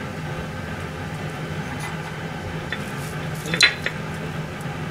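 A small ceramic dish clinks against a stainless steel kitchen counter about three and a half seconds in, after a few light taps, over a steady low hum.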